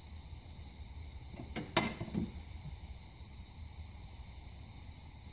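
One sharp click about two seconds in, then a softer knock, as a wrench works on the spring pivot of a Land Pride three-point finish mower deck; the pivot is stiff and being taken apart for greasing.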